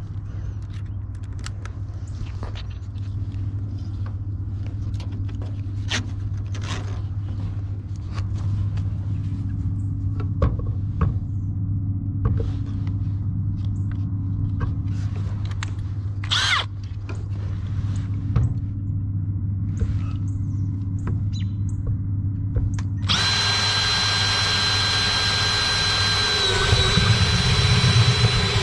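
Makita 18V cordless drill spinning up and running steadily against a galvanized sheet-metal panel, starting about three-quarters of the way through with a high, even motor whine that dips briefly as the bit bites. Before it, scattered clicks and handling knocks over a steady low hum.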